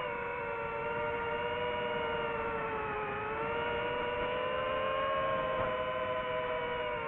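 DJI FPV drone's motors and propellers whining steadily in flight, the pitch dipping about three seconds in and then climbing back.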